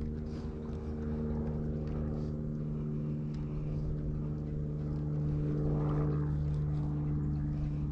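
A steady, low motor drone that holds one pitch, swelling a little about six seconds in.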